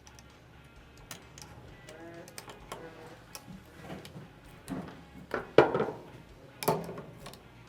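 Scattered light clicks and taps of small metal tools and gun parts being handled during a drop-in trigger install, with two louder knocks in the second half.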